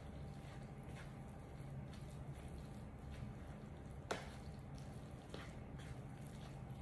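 Wooden spoon stirring a thick breadcrumb stuffing in an electric skillet: faint soft squishing and scraping with scattered light ticks, and one sharper knock of the spoon on the pan about four seconds in.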